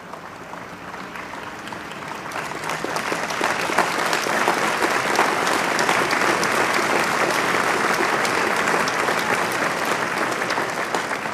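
Audience applauding, building over the first few seconds and then dying down near the end.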